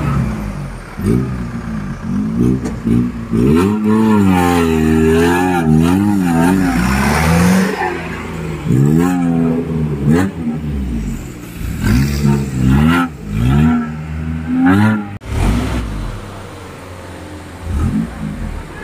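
Modified off-road jeep's engine revving hard over and over, its pitch swinging up and down as the throttle is worked. The longest surge is about four seconds in, followed by a string of shorter blips, and it drops to a lower, steadier note near the end.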